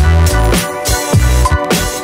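Background music with a heavy electronic bass and a kick-drum beat.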